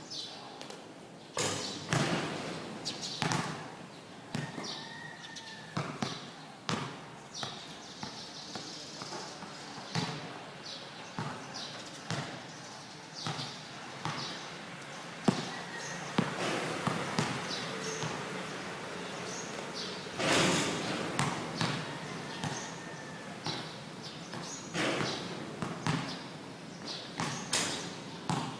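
A basketball bouncing on a court in repeated, irregularly spaced bounces, with scattered voices and shouts.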